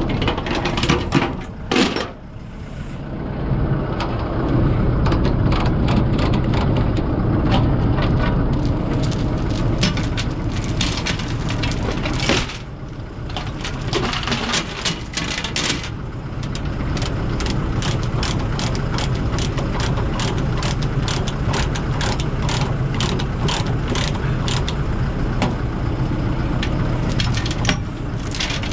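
A heavy diesel engine running steadily under a rapid run of sharp clicks, several a second, with a brief lull about two seconds in and another about twelve seconds in.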